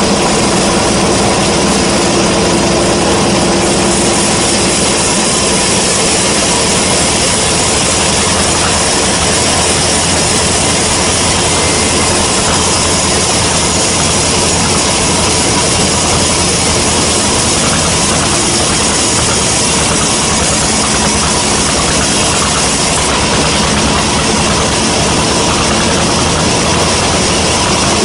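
Sawmill band saw running, a loud, steady mechanical noise with a constant machine hum underneath.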